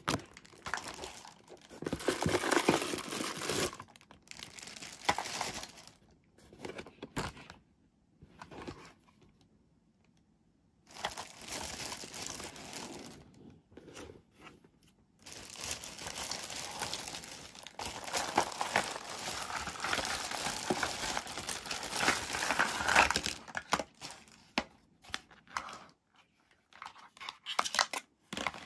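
Clear plastic packaging bags crinkling and rustling as toy doctor-set pieces are pulled out and handled, in bursts with short pauses and one quiet gap of about two seconds a third of the way in.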